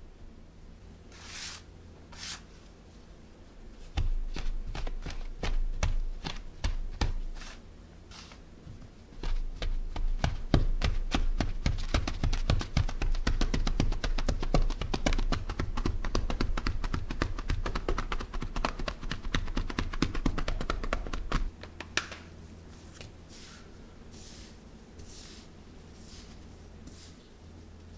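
Metal bench scraper chopping cold butter into a pile of flour on a countertop, with quick repeated knocks of the blade on the counter. The chopping starts about four seconds in and grows fast and dense after about ten seconds. Near the end it gives way to soft rubbing as gloved hands work the crumbly butter-flour mix, the stage of cutting butter into scone dough.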